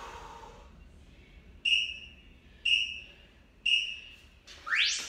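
Interval workout timer giving three short high beeps, one a second, counting down the end of a rest, then a run of quick rising chirps that signal the start of the next work interval.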